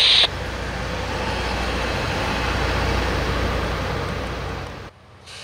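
Loram rail grinder train approaching: a steady low rumble under a broad rushing noise that builds for about three seconds, then fades and cuts off abruptly near the end.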